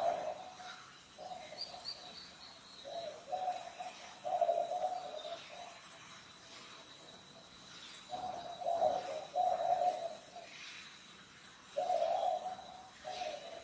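A dove cooing over and over in short low phrases grouped in runs, with a pause of a few seconds midway. Faint high chirps from small birds and a thin steady high tone sit behind it.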